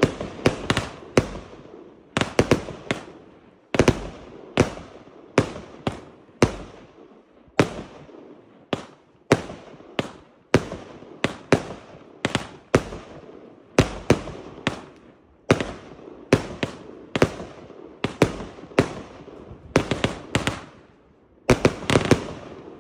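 A 144-shot, 25 mm fireworks compound cake (Pyrocentury El Señor) firing shell after shell: a steady run of sharp bangs, about one or two a second, as the shots launch and burst overhead.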